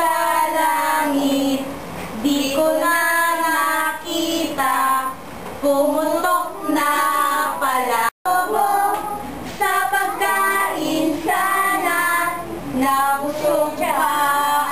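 A group of young children singing a song together with a woman's voice. The sound drops out for an instant about eight seconds in.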